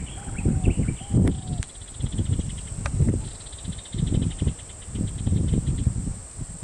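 Insects calling: a fast pulsing trill comes and goes over a steady high-pitched whine. Irregular low rumbles, louder than the insects, run underneath.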